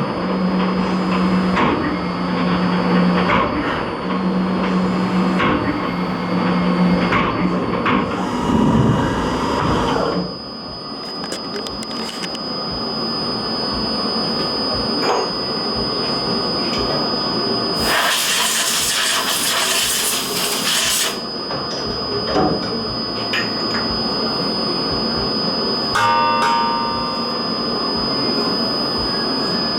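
CNC vertical milling machine cutting Delrin plastic: about ten seconds of cutting noise with a low hum pulsing on and off, then a steady high whine, with a few seconds of loud hiss just past the middle.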